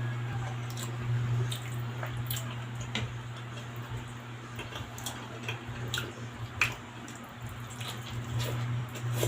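Close-miked eating: wet chewing and smacking mouth clicks, scattered and irregular, from someone eating pork in sour soup. A steady low hum runs underneath.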